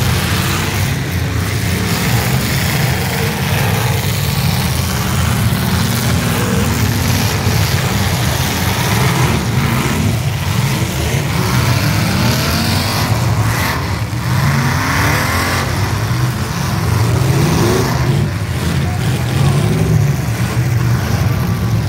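Engines of a field of demolition derby cars running and revving together in a loud, steady din, with revs rising now and then.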